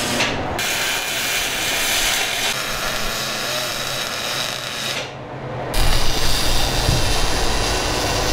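MIG welding with a spool gun: a steady arc hiss and crackle that stops about five seconds in. A louder noise with a low rumble follows after a short break.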